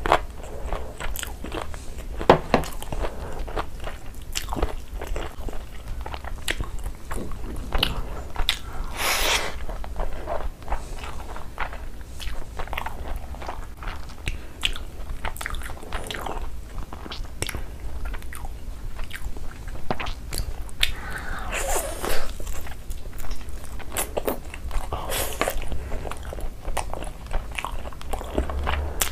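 Close-miked eating sounds of a person chewing chicken biryani and tandoori chicken by hand: a steady run of short mouth clicks and smacks, with a few louder bites.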